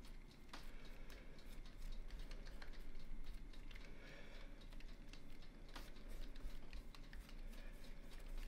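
Pastry brush glazing raw dough pieces on a paper-lined baking tray: soft, irregular dabbing and brushing strokes, with a couple of sharper clicks.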